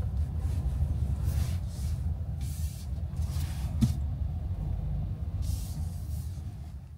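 Road noise inside a moving car: a steady low rumble from the tyres and engine, with a hiss that rises and falls several times as the tyres run over the wet, snowy road. It drops away near the end.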